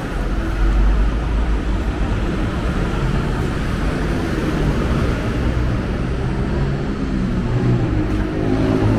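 City street traffic: a steady wash of road noise with a low engine rumble from passing vehicles.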